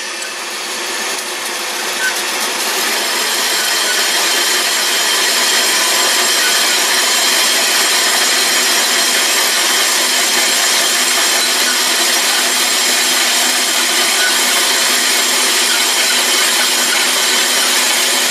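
Horizontal metal-cutting band saw running, its blade cutting through a threaded rod clamped in the vise: a steady sawing noise with several steady high tones, growing louder over the first three seconds, then holding even.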